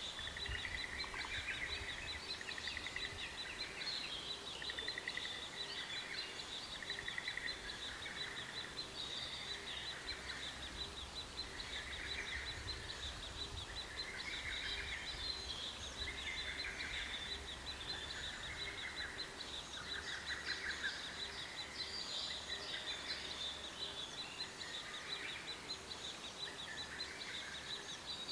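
Natural outdoor ambience: a continuous high, rapidly pulsed trill with short chirping bird calls repeated every second or two.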